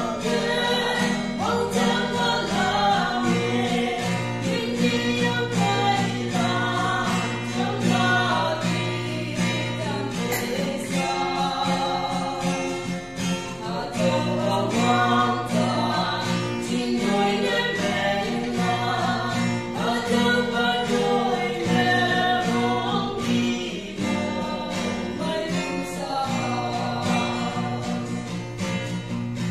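A man singing a song while strumming his own acoustic guitar.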